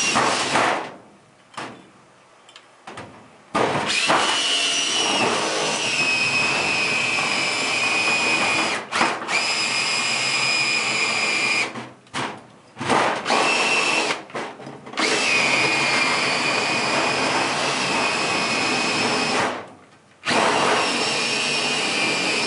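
Power drill turning a circle cutter through a sheet-metal return air pan, cutting a 6-inch hole. It runs in several long stretches with short stops between them, a steady whine over the cutting noise.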